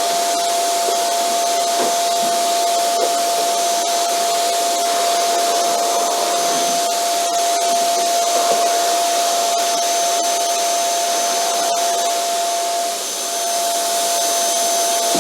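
Vacuum cleaner running steadily: a rush of air with a constant motor whine over it, and a few faint ticks.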